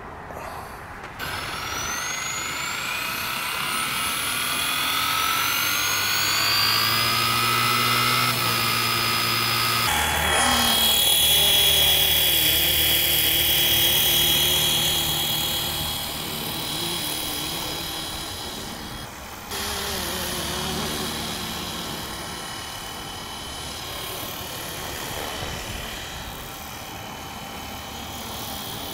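Flywing FW450 v3 electric RC helicopter spooling up, its motor and rotor whine rising steadily in pitch for several seconds. About ten seconds in the sound changes and the helicopter flies, its rotor sound steady but wavering in pitch and loudness as it moves around.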